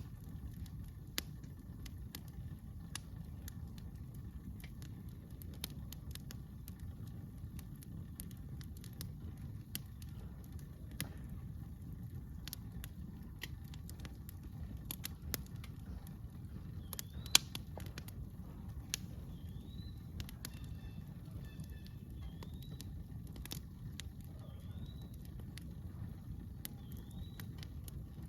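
Wood campfire crackling with scattered sharp pops over a low steady rumble; the loudest pop comes about seventeen seconds in. A few short rising chirps are heard in the second half.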